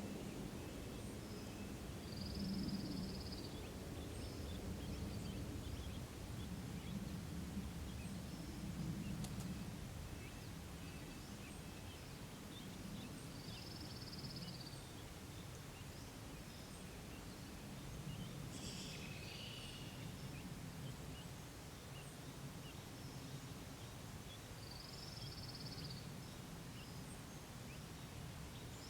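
Outdoor ambience with a steady low rumble, over which a small bird repeats a short high phrase about every eleven seconds, with a busier call in between, about two-thirds of the way through.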